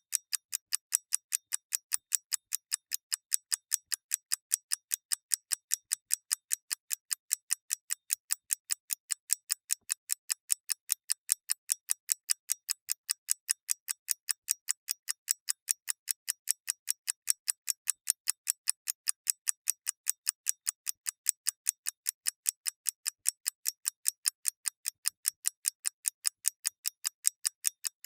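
Mechanical clock ticking fast and evenly, crisp light clicks alternating louder and softer in a tick-tock pattern.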